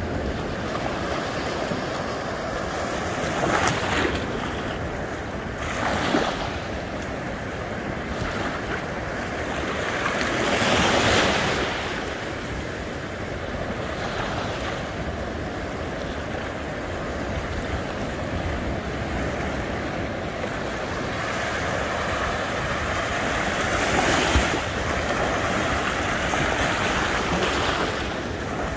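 Ocean surf breaking and washing up the shore: a steady wash with several louder surges as waves break, the biggest about eleven seconds in.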